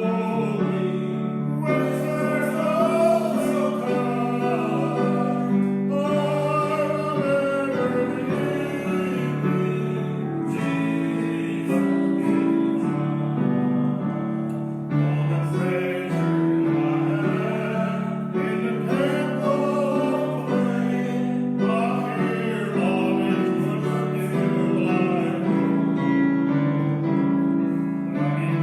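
A hymn sung with instrumental accompaniment, voices holding long notes over a steady instrumental backing.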